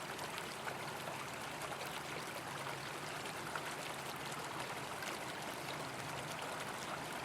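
Water of a stream flowing steadily, with fine trickling.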